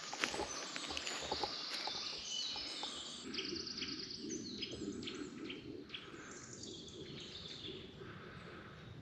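Several birds singing and chirping in woodland. For the first few seconds there are also footsteps and twig clicks on the forest floor.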